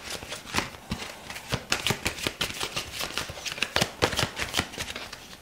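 A deck of tarot cards being shuffled by hand: a rapid, irregular run of crisp card flicks.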